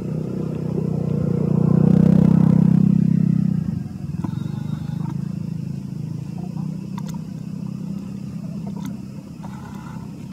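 An engine running with a steady low hum that grows louder to a peak about two to three and a half seconds in, drops off sharply just before four seconds, then carries on more quietly.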